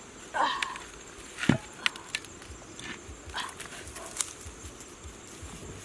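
A dog whining briefly, with a sharp knock about a second and a half in and scattered clicks from a crackling wood fire.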